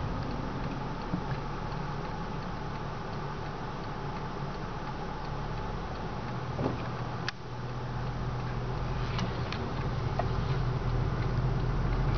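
Turn-signal indicator of a 2003 Toyota Prius ticking steadily in the cabin over the low hum of the car moving slowly, with one sharper click about seven seconds in.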